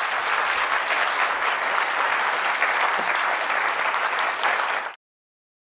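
A large audience applauding, a dense steady clapping that cuts off suddenly near the end.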